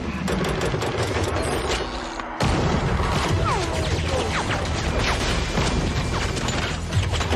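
Film action soundtrack of rapid gunfire and breaking window glass, with heavy booms and many sharp impacts. The din thins briefly about two seconds in, then comes back suddenly and just as dense.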